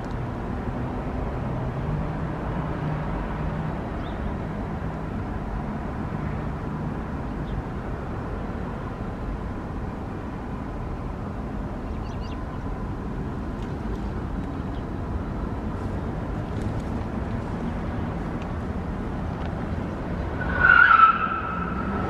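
Steady road traffic noise. About a second before the end comes a brief loud high tone lasting under a second, dropping slightly in pitch.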